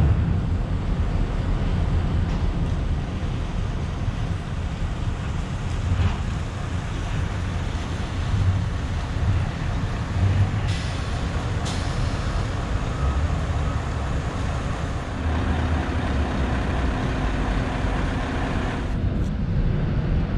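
Scania S650's 16.4-litre V8 truck running with its cement tanker, a steady low engine and road rumble. A short hiss comes about ten seconds in, and the higher noise drops away near the end.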